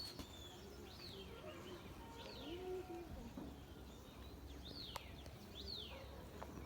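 A bird chirping faintly: about five short chirps, each rising then falling quickly in pitch, spread a second or so apart.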